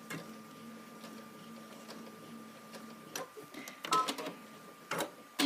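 Domestic sewing machine at rest with a faint steady hum, then a few short clicks and brief mechanical whirs about three to five seconds in, ending in a louder burst right at the end.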